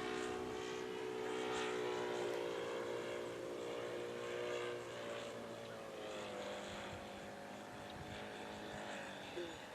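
Radio-controlled model Hawker Hurricane in flight, its engine and propeller a steady pitched drone. The pitch dips about halfway through and the sound slowly fades as the plane moves away.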